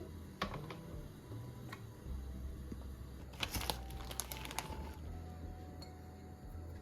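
Household objects being handled: a single click, then a quick run of light clicks and crinkles about halfway through, over a steady low hum.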